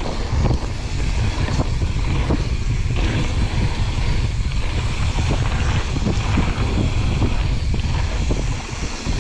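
A YT Jeffsy mountain bike descending a trail: wind buffeting the microphone over the rolling of the tyres, with frequent small knocks and rattles from the bike over bumps.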